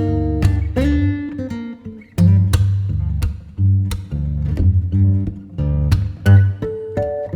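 Background music: plucked guitar notes over a deep bass line.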